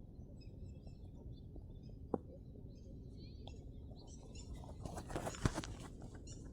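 Small birds chirping in short high notes over a low background rumble, with a sharp click about two seconds in and a burst of crackling and clicks near the end.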